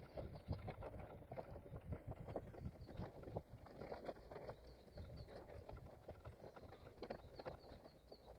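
Running footsteps: a quick, uneven series of soft footfalls, faint on the head-mounted microphone.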